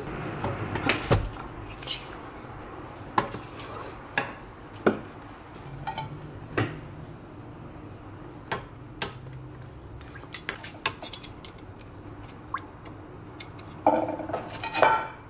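Kitchen utensils knocking and scraping against a rice cooker's inner pot: a wooden spoon stirring rice in stock, then tongs clicking against the pot as chicken pieces are set on the rice. Scattered single knocks, with a busier clatter near the end.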